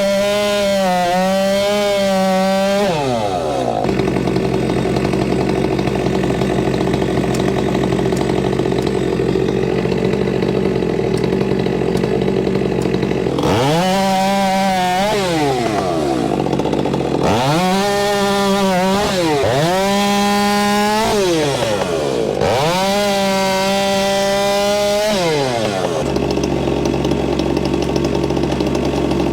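Stihl MS462C two-stroke chainsaw running at full throttle with its pitch wavering under load, dropping to idle about three seconds in. It then opens up again in three bursts of a few seconds each, falling back to idle after each one, and idles near the end.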